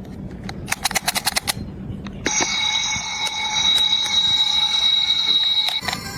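A quick run of about eight sharp clicks, then a steady electronic alarm tone over a hiss, lasting about three and a half seconds before cutting off.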